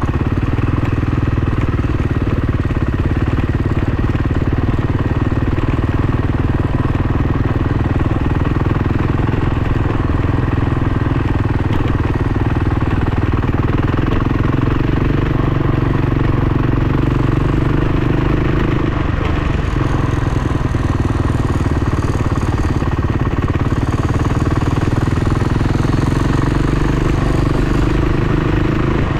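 Off-road motorcycle engine running continuously, its pitch wavering slightly up and down in the second half.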